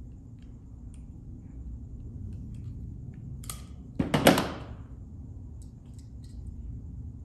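Handling noise from wiring work: faint clicks over a low steady hum, then a sudden loud swishing scrape with a sharp click about four seconds in.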